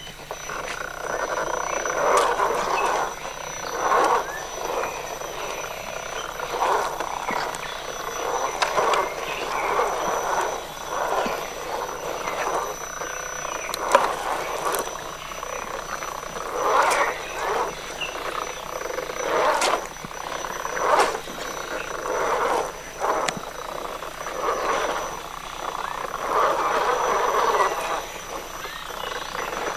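Electric motor and geartrain of a Traxxas Stampede 4x4 RC trail truck whirring in short throttle bursts that swell and fade every second or two as it crawls over muddy forest litter, with occasional sharp clicks.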